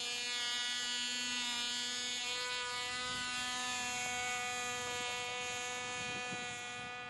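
Cox Black Widow .049 two-stroke glow engine on a small RC plane in flight, running as a steady high-pitched buzz that fades slightly near the end as the plane flies off.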